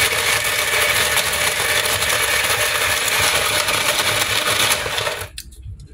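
Snow cone machine running as it shaves ice: a loud, steady grinding with a motor hum, stopping suddenly about five seconds in.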